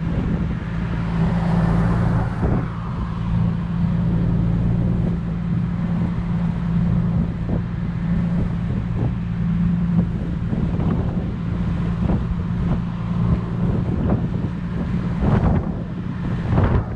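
Turbocharged Infiniti G37's V6 engine droning at a steady speed, heard from inside the cabin over road and wind noise. There are a few short knocks, two of them near the end.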